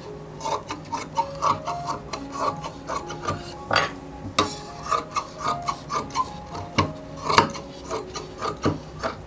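Large tailor's shears cutting through cotton fabric in a steady series of snips, about two or three a second, with a rasp of the blades on the cloth. The shears are trimming excess fabric from a sewn sleeve edge.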